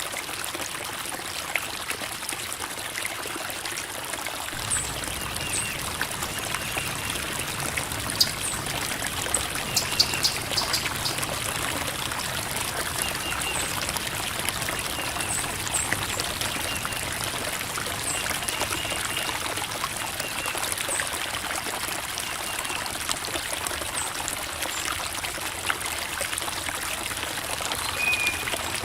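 A small creek flowing and trickling over rocks in a steady babble, with short high notes and clicks scattered through it.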